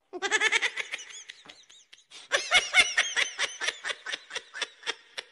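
High-pitched laughter in quick repeated bursts, in two runs with a short break a little before halfway.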